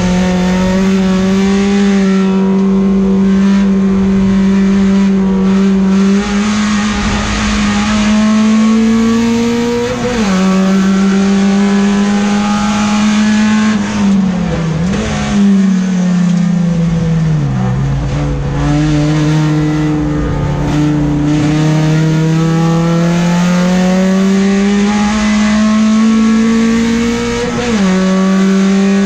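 Peugeot 405 STi race car's four-cylinder engine heard from inside the cabin under load. It holds a steady pitch, climbs, and drops sharply about ten seconds in and again near the end, as on upshifts. In between it falls away with a couple of quick blips, as when downshifting under braking, then pulls up steadily in pitch for a long stretch.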